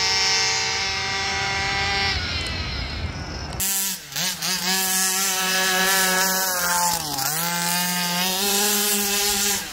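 Two-stroke petrol engines of 1/5-scale gas RC buggies buzzing at high revs as the cars race away, fading over the first three and a half seconds. Then, after a sudden change, a single RC buggy's two-stroke engine runs hard with a steady buzz, its pitch dipping briefly twice as the throttle eases.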